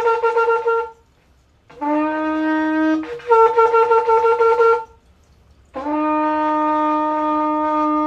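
Kudu horn shofar blown in tekiah blasts. Each blast starts on a low note and jumps up to a higher, rougher note. One blast ends about a second in, a full low-then-high blast follows, and a long steady low note begins near the end.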